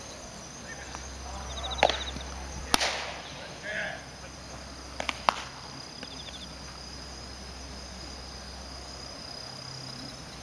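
Outdoor ballpark ambience: insects chirping in short, repeated high trills, with a few sharp pops (the loudest about three seconds in, two close together about halfway through) and a brief faint shout.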